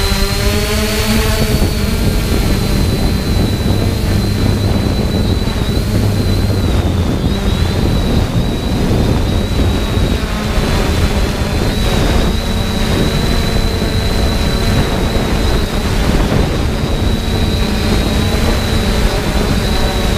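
3DR Solo quadcopter's electric motors and propellers whining steadily in flight, heard from the GoPro mounted on the drone, with wind rushing over the microphone.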